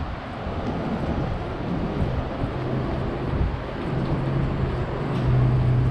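Street traffic noise, with a low steady hum that comes in about two seconds in and grows louder near the end.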